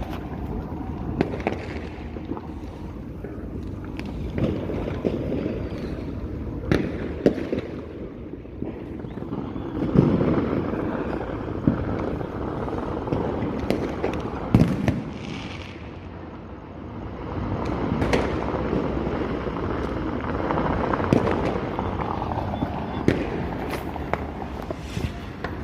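Fireworks display: a steady rumble of many bursts with scattered sharp bangs every second or two. The loudest bangs come about ten and fifteen seconds in.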